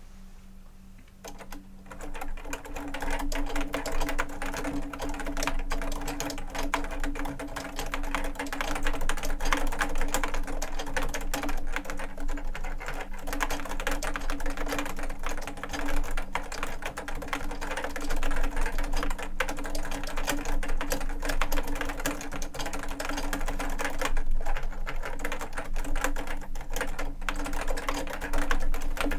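Fast, continuous typing on a JUKI Celavi FK212-JS keyboard fitted with Topre capacitive rubber-dome switches with light 25 g domes: a dense stream of soft key clicks. The typing starts about a second in.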